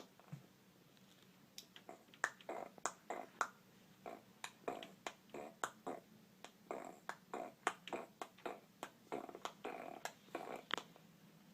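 A baby making a rapid, irregular string of short wet clicking and smacking mouth sounds, two or three a second with brief pauses.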